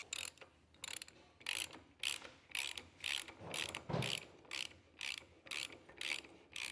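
Ratchet wrench clicking in short back-and-forth strokes, about three clicks a second, as a modified spanner socket turns the axle nut on a John Deere 4300 front axle housing: the socket, ground down to fit, is biting and the nut is turning.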